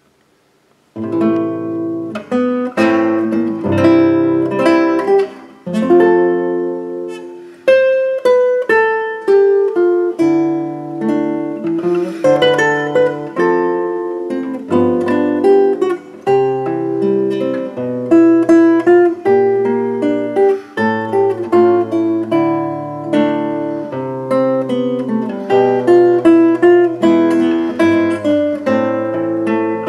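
Solo nylon-string classical guitar, fingerpicked: a melody over bass notes, each note plucked and ringing out. It starts about a second in.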